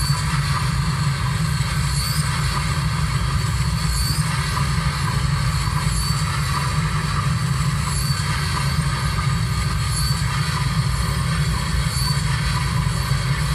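Industrial noise from a Korg Volca Sample sampler, run through a Boss ODB-3 bass overdrive with delay and reverb. It makes a steady, dense wall of distorted low rumble and hiss, with a faint high chirp that comes back about every two seconds.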